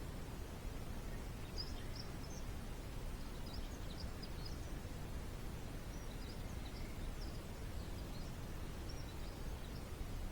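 Birds chirping faintly in short, high calls, scattered from about a second and a half in until near the end, over a steady low background rumble.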